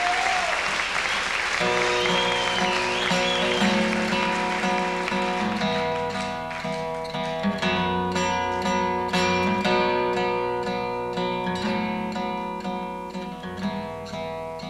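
Audience applause and a whistle dying away, then about a second and a half in a plucked string instrument starts the live instrumental intro of a song, picking steady ringing notes.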